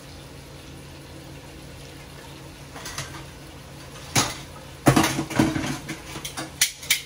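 Metal utensils clattering against a cooking pot: a couple of separate knocks, then a quick run of clanks over the last two seconds. Underneath is a steady hiss of oxtail browning in hot oil.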